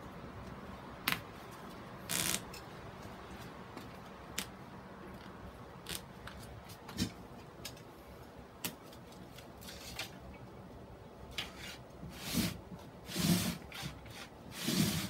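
Handling noise as gloved hands work a staghorn fern mount: scattered small clicks and rustles of sphagnum moss, fishing line and a plastic grid board. Near the end come a few louder scraping rustles as the board is turned.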